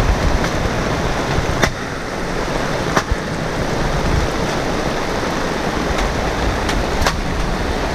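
Steady rushing of heavy rain and a swollen, fast-running mountain stream, with a handful of sharp clicks scattered through it.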